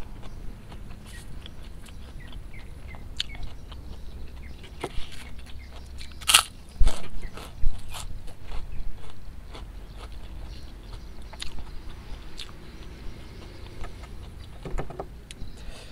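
A person chewing handfuls of tempe penyet with fried rice vermicelli, eaten by hand, with many small mouth clicks. There is one loud crunch about six seconds in, and a few smaller ones just after.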